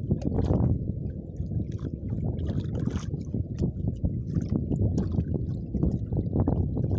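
Water slapping and gurgling against the hull of a small fishing boat, in irregular splashes over a constant low rumble of wind on the microphone.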